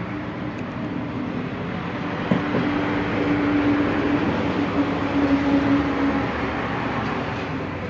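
Engine drone of a passing motor vehicle: a steady hum that swells to its loudest in the middle and then fades, with one short knock a little after two seconds in.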